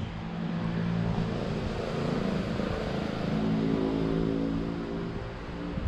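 A motor vehicle's engine running as it drives by, getting louder just after the start, its pitch stepping up about halfway through and dropping away near the end.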